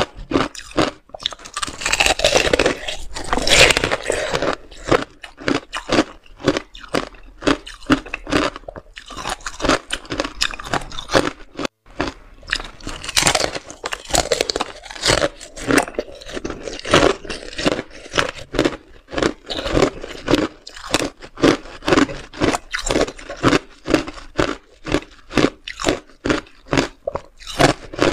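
Hard frozen pomegranate arils in clear ice being bitten and chewed, the ice crunching and cracking in a quick, irregular run of crunches, several a second. The chewing is heaviest a few seconds in and again about halfway.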